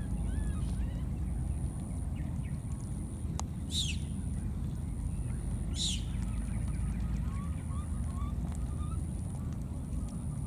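Outdoor ambience: a steady low rumble, and a high steady buzz that breaks off every second or so. Two sharp high calls fall in pitch about two seconds apart, over a few faint short squeaks.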